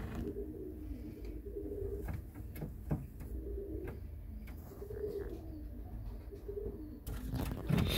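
Tippler pigeons cooing in a low, repeated burble every second or two, with a few sharp clicks and a louder rustle near the end.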